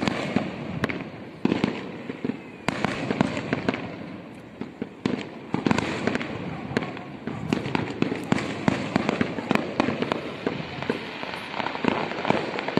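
Aerial fireworks shells bursting in a rapid, irregular run of bangs and crackles, several sharp reports every second.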